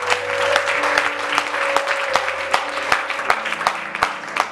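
A church congregation applauding in acclamation, dense clapping, with steady held chords of background music underneath.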